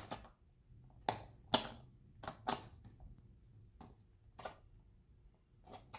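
Slime being pressed and squeezed by hand into a small squeezable poop-shaped toy: a scattered series of short sticky smacks and clicks, about seven in all, the loudest about a second and a half in.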